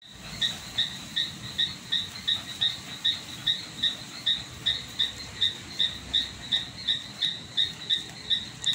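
An insect chirping steadily, in short, evenly spaced, high-pitched chirps, about three a second.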